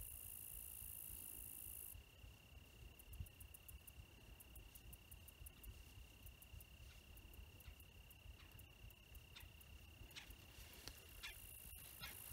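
Near silence with a faint, steady high-pitched trill of crickets, and a few soft clicks scattered through.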